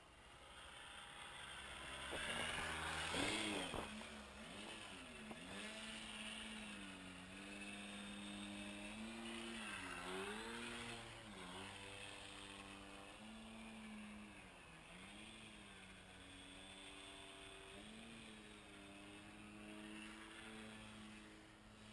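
Cub airplane engine heard from an onboard camera, its pitch dipping and rising again and again with throttle changes. A loud rushing noise about two to four seconds in.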